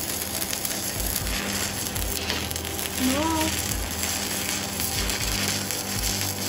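Stick-electrode welding arc burning steadily on thin steel sheet at 55 A, a current too high for the thickness so that the weld burns through the sheet. A short vocal exclamation rises over it about three seconds in.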